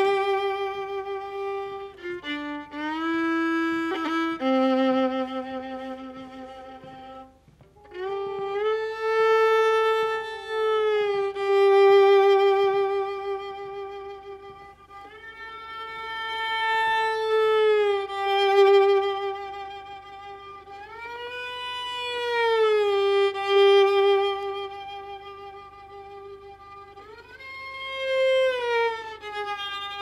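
Solo fiddle bowed in long, slow sustained notes that slide up and down in pitch, with a short break about seven seconds in.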